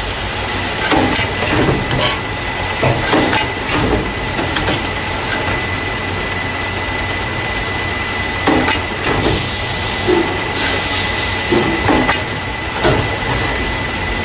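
Carton caser running as it packs paper juice and milk cartons into plastic crates: a steady low hum and a thin steady whine under repeated clacks and knocks, about one or two a second, with a spell of hiss a little past the middle.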